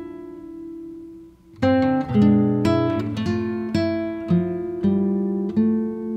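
Background music on acoustic guitar: plucked notes ringing and dying away, a held chord fading to a short pause about a second and a half in, then a steady run of plucked notes.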